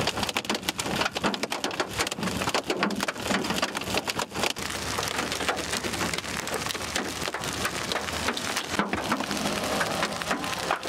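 Hail falling hard: a dense, continuous patter of many sharp impacts.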